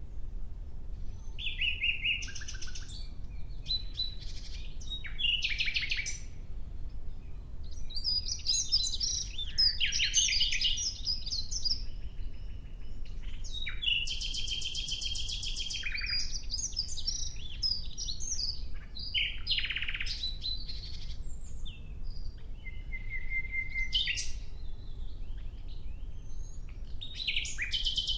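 Nightingale singing in separate phrases a second or two long with short pauses between them, mixing fast runs of repeated notes, chattering trills and a few pure whistled notes, over a steady low rumble.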